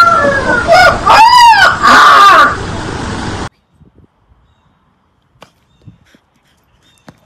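Very young puppy howling in high, wavering calls for about two and a half seconds, then near silence with a few faint clicks.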